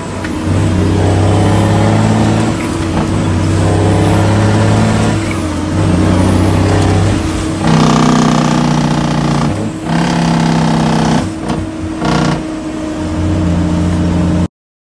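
Diesel engine of an International semi truck pulling through the gears of an 18-speed manual transmission, heard from inside the cab. The engine note runs in steady stretches broken by short dips at each gear change, about five shifts, and cuts out abruptly near the end.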